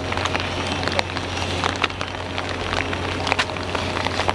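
Heavy rain falling, with a dense hiss and many sharp drop hits close to the microphone.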